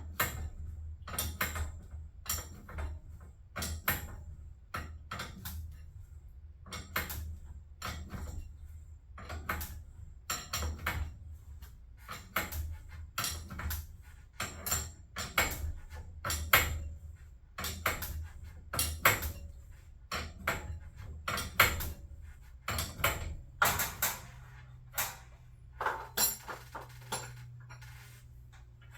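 A run of sharp, irregular clicks and knocks, roughly one or two a second, over a steady low hum.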